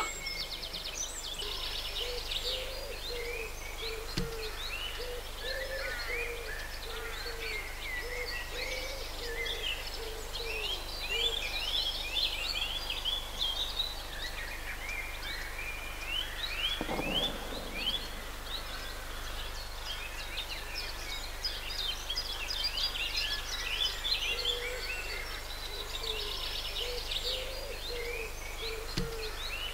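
Many songbirds singing and chirping together from the riverbanks. Underneath runs a low hooting call, repeated in short steady notes through the first half and again near the end.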